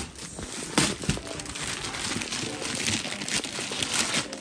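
Gift wrapping paper being torn and crumpled off a cardboard box, a continuous crinkling with a couple of sharper rips about a second in.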